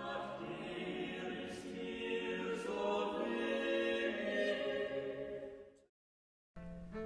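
Slow classical music with long held, sung notes, fading out about six seconds in. After a moment of silence, another piece of music starts just before the end.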